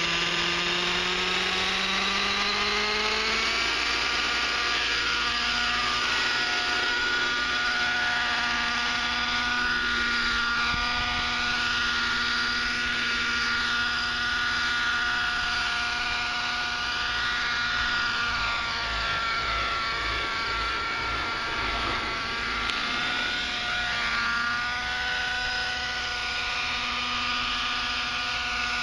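Align 600 Nitro RC helicopter's two-stroke glow engine and rotor spooling up, the whine rising in pitch over the first few seconds, then running steadily in flight with small swings in pitch.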